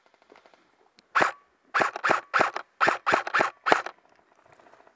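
Airsoft rifle firing: one shot about a second in, then a quick string of about nine single shots at four to five a second.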